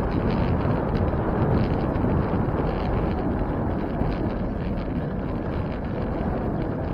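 Steady wind rumble on the microphone of a camera carried on a moving bicycle.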